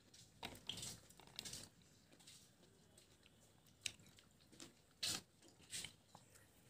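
A person biting and chewing watermelon: faint, irregular short crunches.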